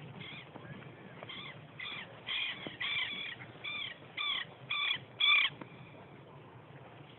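A bird giving a series of about ten short, harsh calls, roughly two a second. The calls stop about five and a half seconds in, the last one the loudest.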